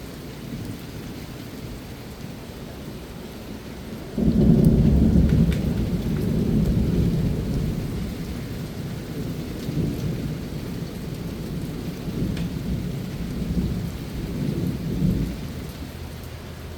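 Steady rain falling, with a roll of thunder breaking in suddenly about four seconds in and rumbling on low, rising and falling, for about eleven seconds.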